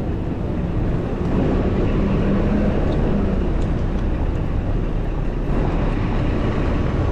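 Steady city street traffic noise heard from a moving bicycle, with wind rumbling on the microphone.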